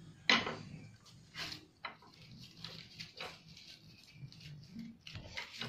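Handling noise of a string-assisted hand-drill fire kit: rustling of jute twine and dry leaves with light taps of the wooden spindle and fireboard, and one sharp knock about a third of a second in.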